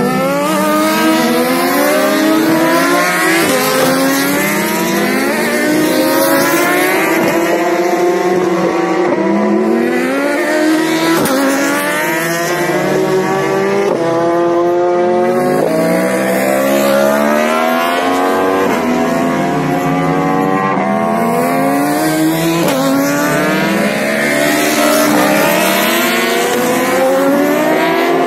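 Superbike racing motorcycles running at full throttle on a road circuit, several engines at once, their pitch climbing through the gears with sharp drops at each upshift and sweeping down as bikes pass.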